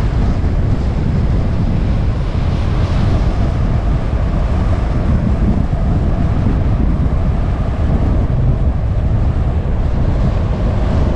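Steady road noise from a vehicle driving on a paved road, mixed with a low wind rumble on the microphone.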